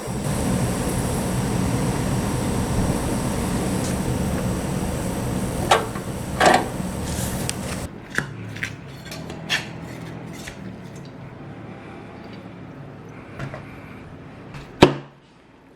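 Steady rushing noise with a low hum and a couple of sharp knocks. About halfway through it cuts suddenly to a quieter background of scattered clicks and knocks, like cooking tools being handled, with one loud knock near the end.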